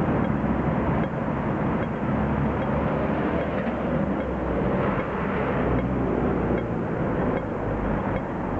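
City traffic running through a junction, with car and truck engines passing, over a faint steady ticking from a Hong Kong audible pedestrian crossing signal, the clicking device that guides visually impaired people across.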